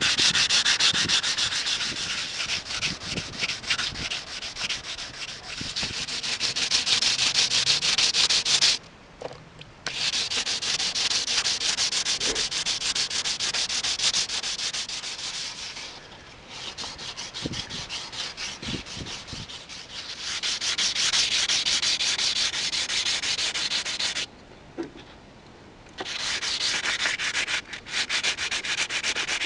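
Hand wet-sanding of fiberglass gel coat with 150-grit wet/dry sandpaper on a sanding block: quick back-and-forth scraping strokes. This is the coarse first pass that levels cured gel-coat filler with the surrounding surface. The sanding stops briefly twice, about nine seconds in and again around twenty-five seconds.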